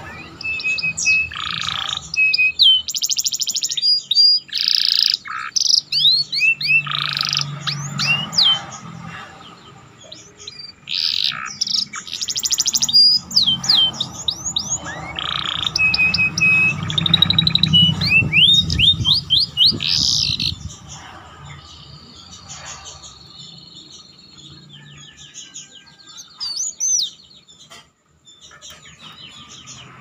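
Domestic canary singing in rapid bursts of chirps, trills and rising whistles, its song filled in with phrases copied from the bar-winged prinia (ciblek). The song breaks off about two-thirds of the way through, leaving a quieter stretch with one short phrase near the end.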